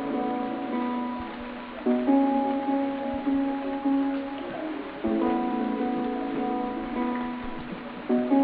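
Background music played on plucked strings, with a new chord struck about every three seconds and a repeating picked pattern between.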